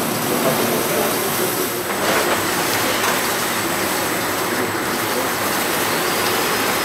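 Rosenthal Trivision Trimmer running, with a steady, even machine noise as the printed web feeds through its rollers and slitters. A faint high whine comes in about two-thirds of the way through.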